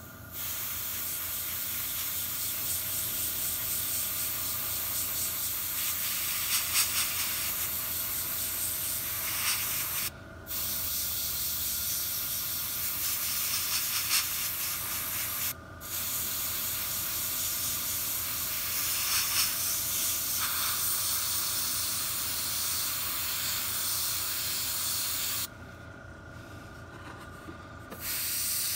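Gravity-feed airbrush spraying with a steady hiss, misting paint close in onto a model's panels. The air stops briefly about ten seconds in and again a little after fifteen seconds, then drops away for a few seconds near the end before starting again.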